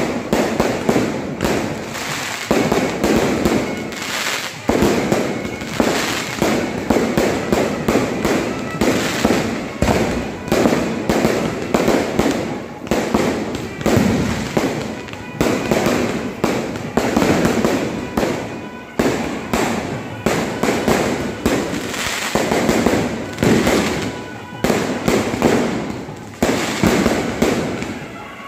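Fireworks display going off without a break: a rapid, continuous barrage of bangs and crackles from aerial shells bursting overhead, loud throughout.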